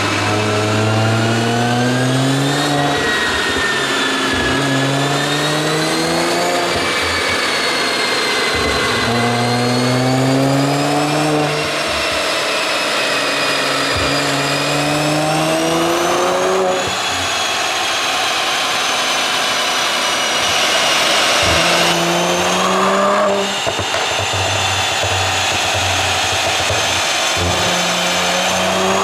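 Mercedes-AMG C43's twin-turbo V6 engine through a tuned exhaust, revving up again and again, its pitch climbing and then dropping back. Short sharp pops come off the exhaust every few revs, the crackle that the pop-and-bang tune is meant to give.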